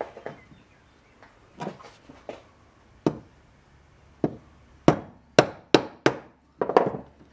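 Ball-peen hammer tapping a pin back into the parking-brake lever on a rear drum brake shoe: a string of sharp metal taps, a few spaced out at first, then coming faster and harder in the second half.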